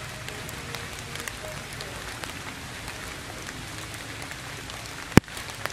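Steady rain falling on tree leaves, with scattered drop ticks and one sharp, loud click about five seconds in.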